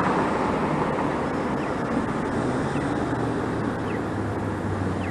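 Road traffic at an intersection: a car driving through with its engine and tyre noise over a steady hum of passing traffic.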